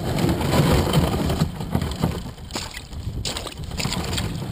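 Old Town Vapor 12XT kayak's polyethylene hull pushing through thin skim ice, giving irregular sharp cracks and crunching over a steady low rushing noise.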